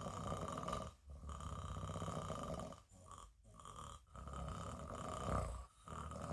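Snoring: slow, rhythmic rasping breaths with brief pauses about every one to two seconds.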